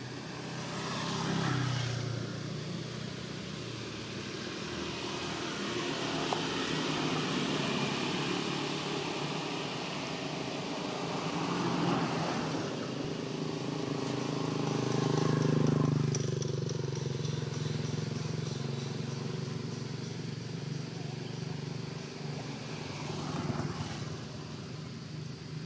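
Motor vehicle engines running, with the sound swelling about a second and a half in and again around twelve and sixteen seconds in.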